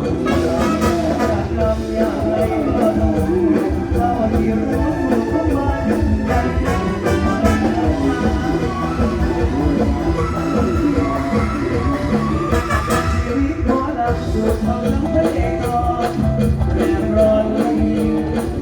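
Mor lam music with a steady drum beat and singing, played loud through a large stage sound system under test.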